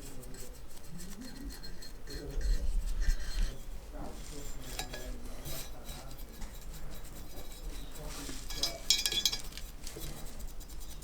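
Metal parts and tools clinking and knocking as they are handled. There is a louder dull thump about two and a half seconds in, and a ringing metallic clink near nine seconds.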